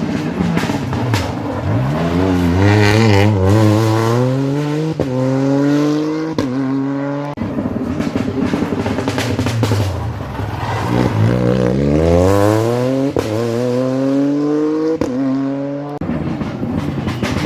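Rally car engines at race pace, accelerating hard through the gears. The engine note climbs sharply and drops back at several quick upshifts, in two runs a few seconds apart.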